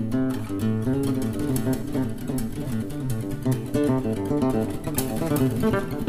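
Nylon-string classical guitar played fingerstyle: a quick, continuous stream of plucked notes in a flowing, arpeggiated line.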